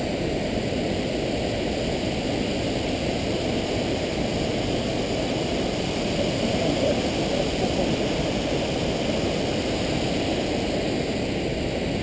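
Wind buffeting the action camera's microphone: a steady low rumble.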